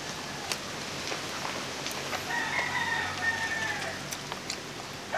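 A rooster crowing: one long drawn-out crow starting about two seconds in. Faint clicks from hands handling food and eating run underneath.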